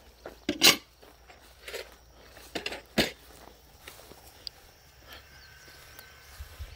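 Footsteps swishing through grass, several louder steps in the first three seconds, over a faint low steady hum.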